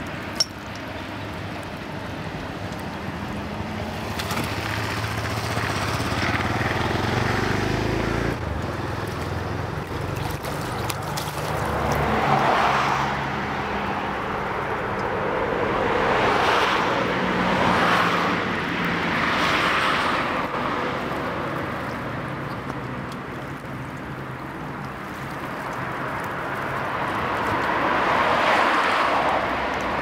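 Outdoor background dominated by road traffic: several vehicles pass, each swelling and fading over a couple of seconds, over a low steady hum.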